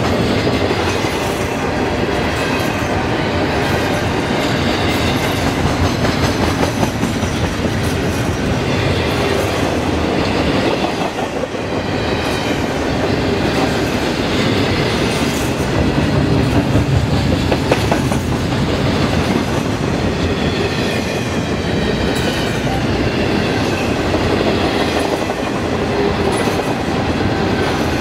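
Double-stack intermodal container well cars of a freight train rolling steadily past, their wheels clattering over the rails with a clickety-clack and a faint, wavering wheel squeal at times.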